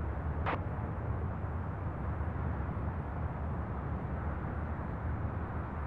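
Twin-engine jet airliner climbing away after takeoff, its engines a steady low rumble.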